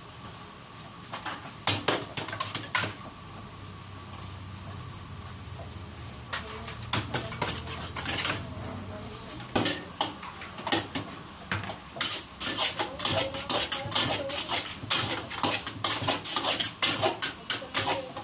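Ladle scraping and clanking against a metal wok as noodles and ground meat are stirred and tossed. There are a few clanks about two seconds in, then rapid, near-continuous clanking over the last third.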